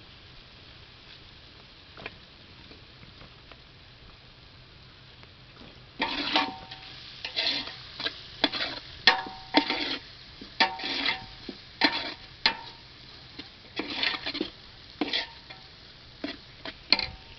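Metal ladle scraping and clanking against a large metal cooking pot as a thick fried onion-tomato masala is stirred, over a faint sizzle. The strokes start about six seconds in and come irregularly, roughly one a second, each with a short metallic ring.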